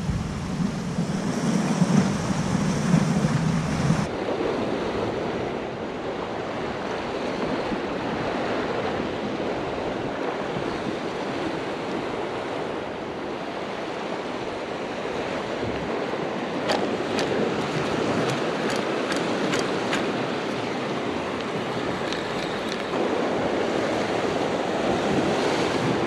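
Ocean surf washing and breaking, with wind buffeting the microphone. A short run of faint clicks comes about two-thirds of the way in.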